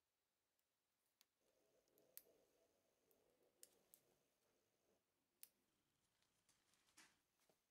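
Near silence broken by about half a dozen faint, scattered clicks and a soft rustle of hands handling the clamp, the acrylic strip and a small plastic glue bottle.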